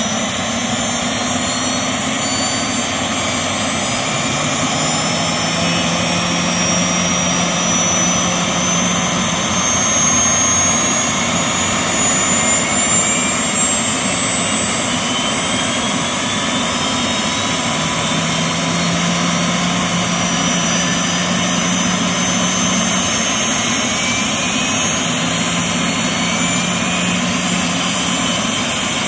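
Bell 206B-3 JetRanger III helicopters' Allison 250 turboshaft engines running on the ground at start-up, rotors turning slowly. A steady loud rush with a high turbine whine that climbs slowly in pitch as the engines spool up.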